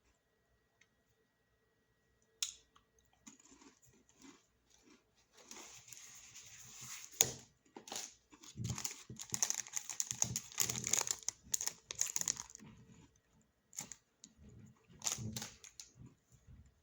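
Snack packaging being handled, crinkling and tearing, loudest in the middle with a sharp snap partway through and a few shorter rustles near the end.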